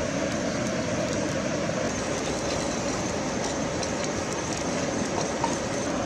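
Steady rushing of a shallow river flowing over stones, an even, unbroken noise.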